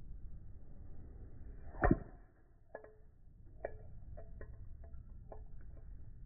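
Keycaps being smashed: one loud hit about two seconds in, then a scatter of lighter clicks with a short ring to each.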